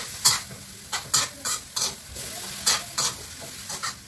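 A spatula stirring and scraping pork as it browns in a frying pan, with quick sharp scrapes about every half second and the pork sizzling quietly in between.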